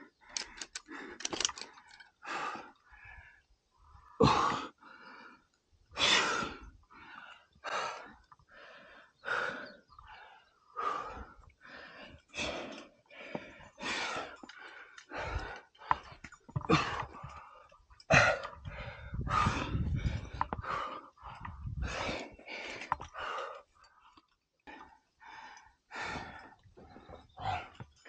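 A rock climber breathing hard while climbing: short, forceful breaths and gasps one after another, one to two a second. A low rumble comes in about two-thirds of the way through.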